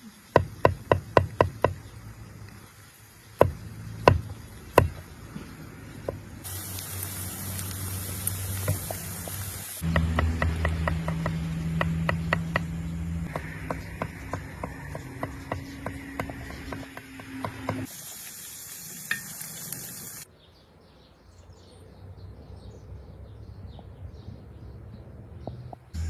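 Cooking sounds: a quick run of sharp knocks, then stretches of sizzling hiss.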